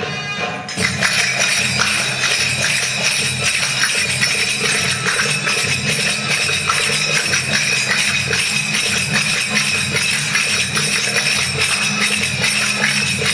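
Middle Eastern-style tribal belly dance music: a pitched melody that gives way about a second in to dense, fast jingling percussion over a steady low drone.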